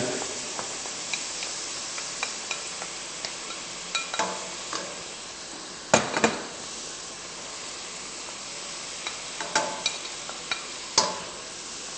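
Chopped onions and peppers sizzling in oil and butter in a stainless steel pot: a steady hiss, with a wooden spatula stirring and knocking against the pot every few seconds.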